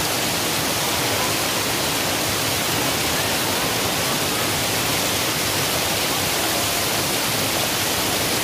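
Waterfall's falling water rushing steadily in an even, unbroken hiss.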